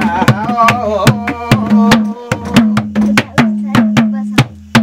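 Madal hand drum beaten in a quick, even folk rhythm of about three to four strokes a second, its low head ringing between strokes. A man's voice carries the end of a sung salaijo line over the first two seconds, then the drum goes on alone.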